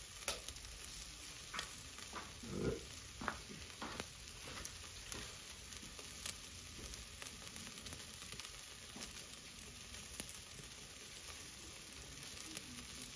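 Chicken drumsticks sizzling on a charcoal grill grate over hot coals, a steady hiss with scattered crackles and pops. A brief louder thump comes about two and a half seconds in.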